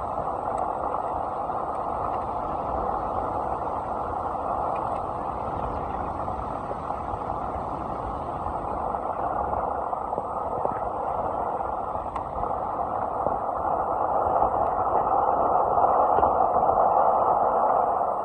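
Wind buffeting a microphone: a steady rush over an uneven low rumble, swelling louder near the end.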